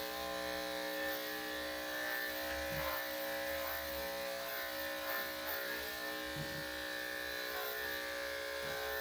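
Electric dog grooming clippers running with a steady hum as they are drawn through a dog's curly coat.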